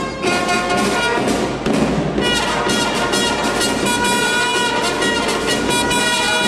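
Small brass ensemble of trumpets and trombones, with a saxophone, playing a piece in held chords that change every second or so.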